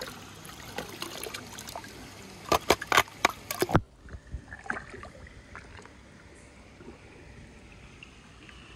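Swimming-pool water sloshing and splashing as a plastic scoop is swept through it, with a cluster of loud sharp splashes about two and a half seconds in. Just before the four-second mark the sound cuts to a duller, quieter wash of water for the rest.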